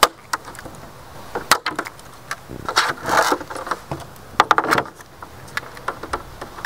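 Tin snips cutting through the ribs of a plastic crate: an irregular string of sharp snaps as each plastic rib gives way, with a short stretch of rubbing and rustling about three seconds in.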